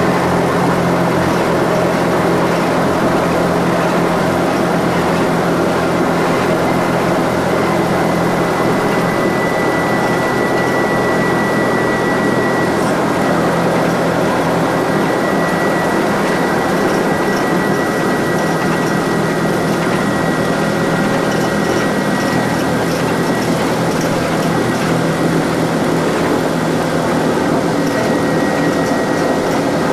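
Steady drone of an SR.N4 hovercraft under way, heard inside its flight deck: its four Rolls-Royce Marine Proteus gas turbines driving the propellers and lift fans, a thin high whine over a low hum.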